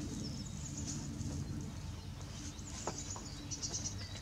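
Songbirds chirping and trilling in short, high phrases over a steady low hum, with one light knock about three seconds in.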